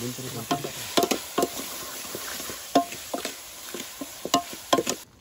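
Metal ladle stirring and scraping in a steel cooking pot over a wood fire, clinking irregularly against the pot with short ringing knocks, over a steady sizzle of chopped vegetables frying in oil.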